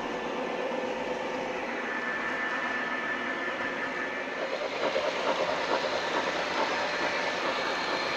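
O gauge model train running on three-rail track, its wheels rolling and clicking over the rail joints and switches. The clicking gets louder and quicker about five seconds in.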